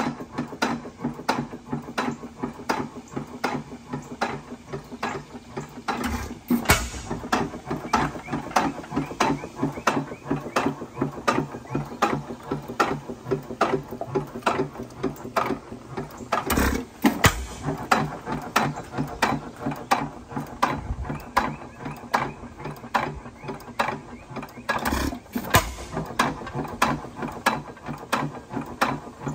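6 hp headless Witte hit-and-miss engine running: an even clatter of clicks from its valve gear and governor, a few a second, while it coasts between firings. Louder firing strokes break in only now and then: once about six seconds in, twice in quick succession around seventeen seconds, and twice again near twenty-five seconds.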